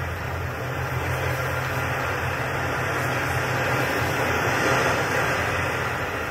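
A steady low rumble with a hiss over it, swelling a little midway and easing near the end: an ambient soundscape played under a wordless stage sequence.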